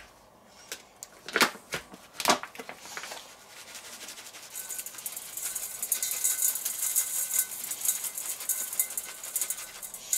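Plastic pouch of dry spice rub crinkling as it is handled and opened, then the rub shaken out of the pouch onto ground beef in a steel bowl: from about four seconds in, a dense, high, hissing rattle of pouring granules.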